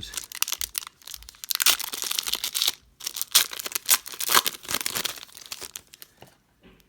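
Wrapper of a 2017 Donruss football card retail pack being torn open and crinkled by hand, in quick crackling rips with a short pause in the middle, stopping near the end.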